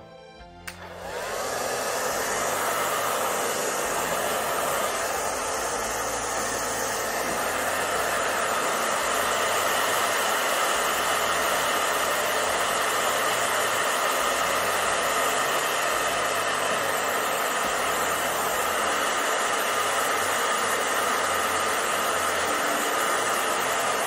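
Handheld hair dryer switched on about a second in, rising quickly to a steady blowing run on high.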